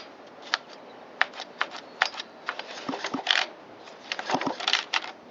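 Scattered light clicks and taps, with two short rasping rattles about three and four and a half seconds in, from handling an Echo CS370 chainsaw and a compression gauge during a compression test.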